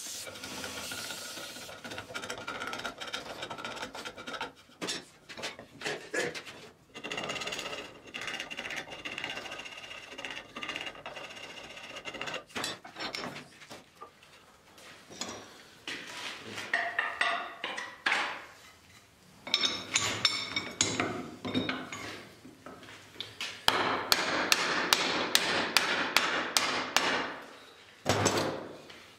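Workshop tool sounds in turn. First a belt grinder runs with a steady whine, then come uneven scraping and knocking as a wooden axe handle is shaped by hand. The loudest part comes near the end: a fast, even run of sharp strikes, about six a second, for several seconds.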